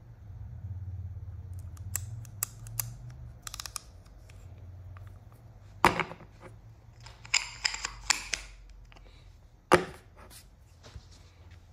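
Clicks and knocks of a Nikkor 28mm f/2.8 manual lens being handled and fitted onto its plastic rear cap. The lens comes down on the desk with a sharp knock about six seconds in, followed by a flurry of small clicks and rubbing as its rings are turned, and another sharp knock near the end.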